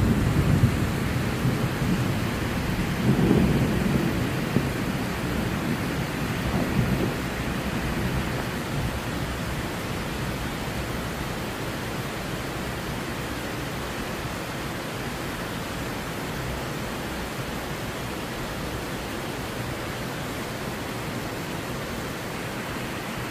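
Heavy rain pouring in a steady hiss, with low rumbles of thunder in the first eight seconds or so, then the rain alone.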